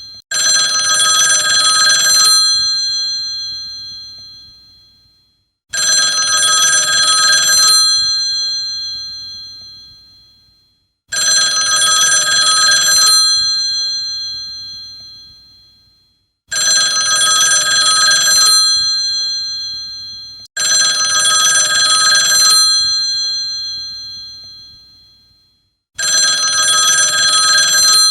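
Old telephone's bell ringing: six rings of about two seconds each, a few seconds apart. Each ring dies away slowly after it stops.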